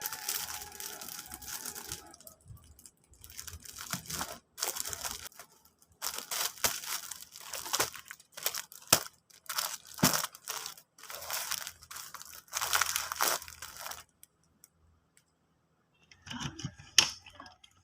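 Packing materials handled by hand: irregular crinkling, rustling and tearing in clusters that stop near the end, followed by a few light clicks and taps.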